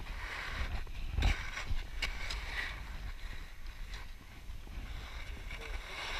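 Skis sliding and scraping over packed snow, with wind rumbling on the microphone and irregular scrapes and knocks, a little quieter about four seconds in.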